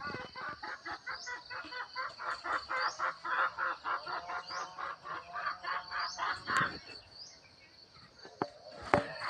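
Crickets chirping in a steady high trill. Over them comes a louder, fast pulsing call, about five pulses a second, which stops about two-thirds of the way through. Two sharp knocks follow near the end.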